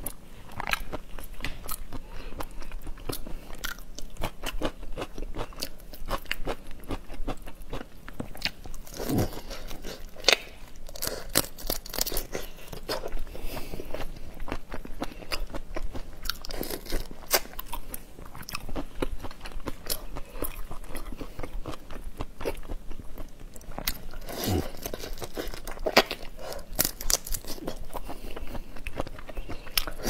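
Close-miked eating of whole shell-on prawns: shells cracking and crunching, with steady chewing and crackling through the whole stretch.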